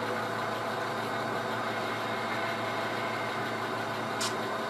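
HO scale model freight train rolling slowly as a string of cars is pulled out of a yard track, with a steady mechanical drone throughout. A short sharp click about four seconds in.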